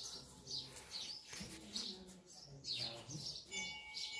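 Small birds chirping: short, high chirps repeating two or three times a second.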